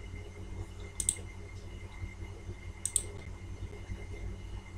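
Computer mouse clicked twice, about a second in and again about three seconds in; each click is a quick press-and-release pair. A low steady hum runs underneath.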